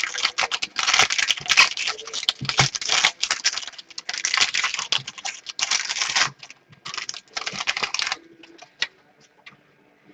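A pack of trading cards being opened and handled: quick bursts of wrapper rustling and cards scraping and clicking against each other, thinning out to a few faint clicks about eight seconds in.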